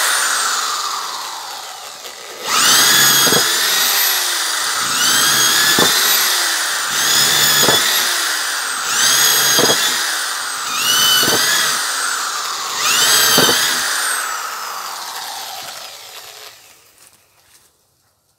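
Hyundai D-850 Expert corded impact drill at full speed boring holes in a pine plank. It winds down from one run, then comes six short bursts about two seconds apart. Each spins up in pitch, bites into the wood with a short knock, and winds down as the trigger is let go, the last fading out near the end.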